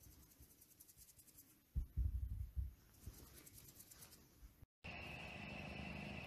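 Faint scratchy rustling of a kitten moving on a shaggy rug, with a few low thumps about two seconds in. Near the end the sound cuts off and gives way to a steady hum with a high whine.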